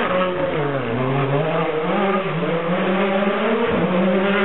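Rally car engine revving hard, its pitch falling and rising again several times with throttle and gear changes, with a brief dip and climb near the end.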